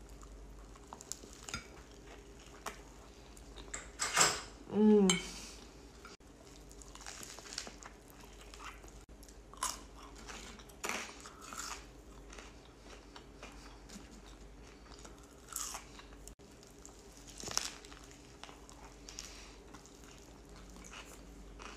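Close-up eating of a lettuce sandwich: bites and chewing with scattered small crunches. About four to five seconds in, a short voiced hum from the eater.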